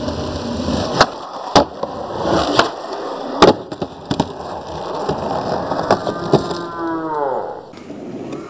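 Skateboard wheels rolling over concrete with a steady rumble, broken by about seven sharp clacks of the board popping and landing on and off a concrete ledge. Near the end a whine falls in pitch, and then the rolling stops.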